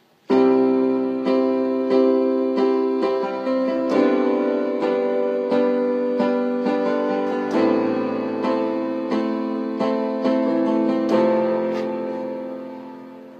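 Piano music playing a slow instrumental introduction. Notes and chords are struck at a steady pace, starting suddenly just after the opening and fading away near the end.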